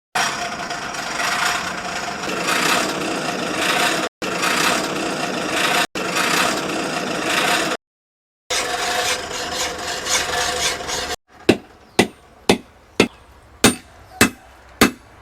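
Blacksmith's forge work: a loud, steady metal rasping that swells rhythmically, then about nine sharp hammer strikes on metal, two to three a second.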